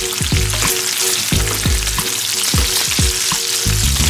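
Chopped bacon sizzling in fat in a hot frying pan, stirred with a wooden spatula. A bass-heavy music beat plays underneath.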